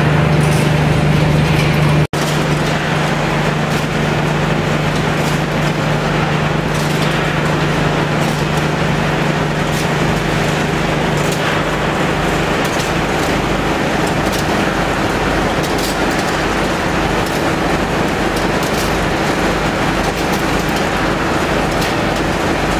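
Scrap metal shredding and sorting line running: a loud, steady machinery drone with a low hum and light scattered clicks. The sound drops out for an instant about two seconds in.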